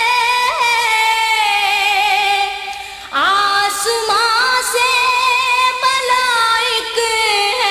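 A woman singing a naat, a devotional Urdu hymn, in long held and ornamented notes. She breaks off briefly about three seconds in and comes back in with a rising slide into the next phrase.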